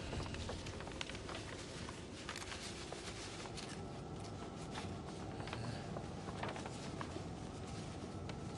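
A long paper scroll rustling and crackling quietly as it is unrolled by hand, with scattered small paper clicks over a faint steady hiss.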